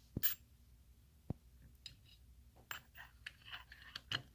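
Light clicks and knocks of doorknob hardware being handled and pushed into place on the door: a sharp click just after the start, another about a second later, then a run of small clicks and scrapes in the second half.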